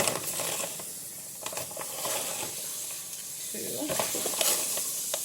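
Small metal measuring spoon scooping granulated sugar, with scraping and a few sharp clicks against the container over a steady hiss.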